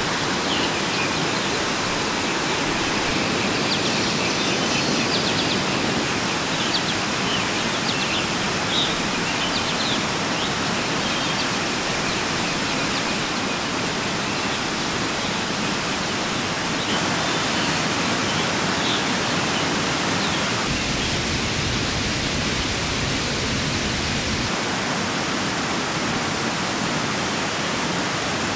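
Steady rushing of a forest valley stream, an even wash of water noise that shifts slightly in tone a few times.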